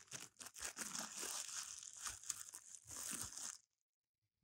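Food packaging being crinkled and torn open by hand as cornbread is unwrapped: a dense crackly rustle that stops abruptly about three and a half seconds in.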